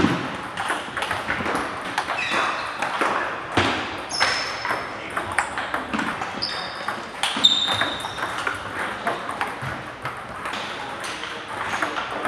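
Table tennis balls clicking irregularly off paddles and tables, with rallies overlapping from several tables in a large hall. A few short high squeaks of shoes on the wooden floor come in the middle.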